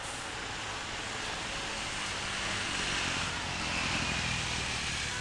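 Boeing 777-300ER's twin GE90 turbofan engines running as the airliner rolls down the runway on its takeoff run. A steady jet rush grows slightly louder, with a faint high whine in the second half.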